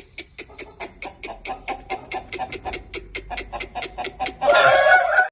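Aseel chickens: an even run of short, sharp clicks, about five or six a second, then a louder, harsh call near the end.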